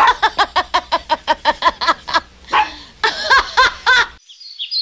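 A woman laughing hard in rapid, high-pitched bursts, about seven short rising "ha"s a second, in two long bouts that break off suddenly about four seconds in. Chirping birds start up right after, near the end.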